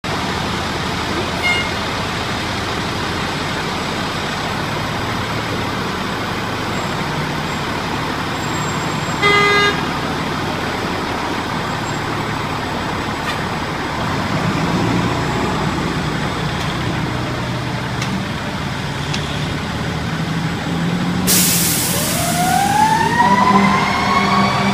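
Fire engine's diesel engine running steadily as it pulls out of the station, with one short horn blast about nine seconds in. Near the end comes a sudden hiss of air, and then the siren starts up, wailing with rising pitch.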